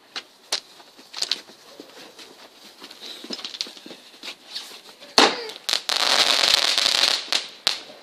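Small consumer firework going off: scattered pops and crackles, then about five seconds in a sharp bang followed by about two seconds of dense hissing crackle that dies away.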